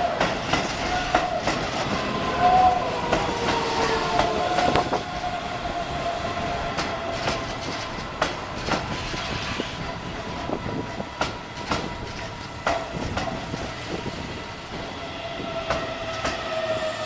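Keihan electric train running, its wheels clicking over rail joints, with a drawn-out whining tone that drifts slightly in pitch.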